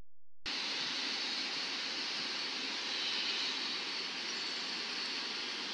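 Steady outdoor background hiss with no distinct event in it, starting suddenly about half a second in.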